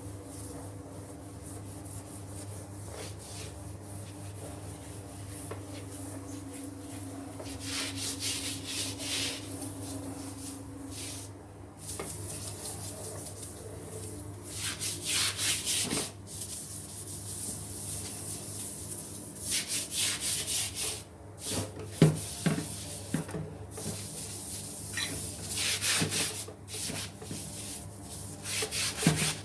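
Stiff brush scrubbing a kitchen surface wet with acid cleaner in quick back-and-forth runs of strokes, getting louder from about eight seconds in, over a steady low hum.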